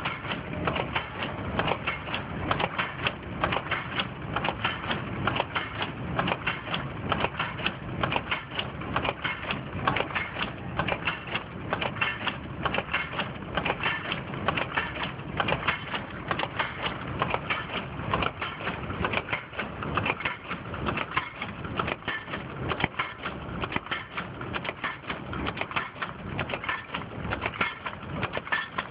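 Automatic dog chain making machine running: a continuous, rapid metallic clatter of many clicks and knocks from its wire-forming slides and tooling.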